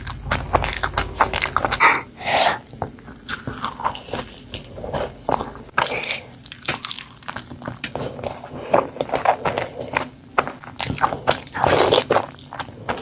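Close-up eating sounds: crunchy bites and chewing of crisp food, a quick, irregular run of crackling crunches.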